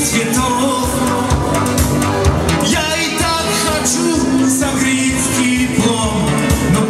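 Live wedding-band music: accordion and electronic keyboard with a steady dance beat, and a man singing in Russian.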